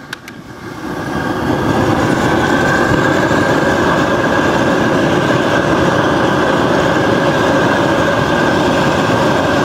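High-pressure propane burner of a seafood cooker being turned up as the gas valve is opened: a loud, steady rushing roar that builds over the first two seconds and then holds full.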